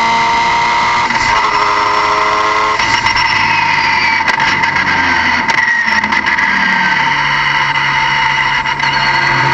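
Turbocharged car engine running with a loud, high whine over the engine note, its pitch drifting up and down as the revs change.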